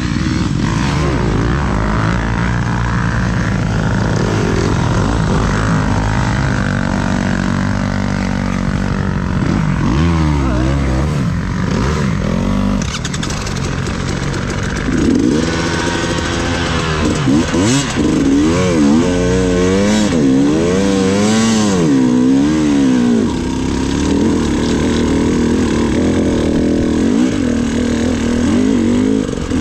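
Off-road motorcycle engine revving up and down as the bike is ridden over a hare-scramble course. The pitch rises and falls over and over, quickest about halfway through.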